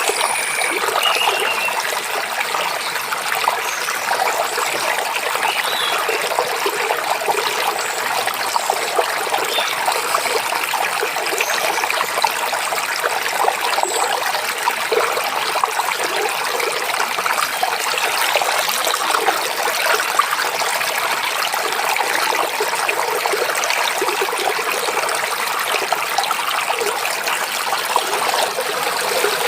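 Mountain stream babbling and trickling steadily.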